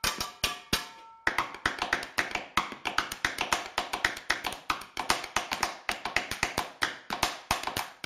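Improvised percussion played with thin wooden sticks on an upturned aluminium stockpot and an upturned enamel basin. A few strikes with a ringing tone in the first second give way to a fast, steady rhythm of about five or six strikes a second.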